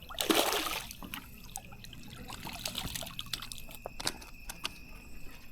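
Water splashing briefly at the start, then scattered drips and small clicks: a hooked white bass being lifted out of the water.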